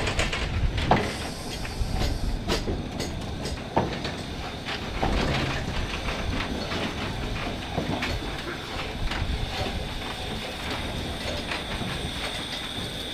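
Saxon IV K narrow-gauge steam locomotive rolling slowly past, its wheels and running gear clanking and clicking irregularly over a low rumble, with some steam hiss. A steady high hiss comes in near the end.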